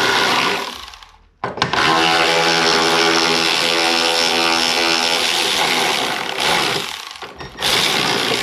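A handheld power tool's motor whining steadily as it spins out 10 mm bolts. It runs in three bursts: one stops in under a second, a long run follows from about a second and a half to six and a half seconds in, and a short burst comes near the end.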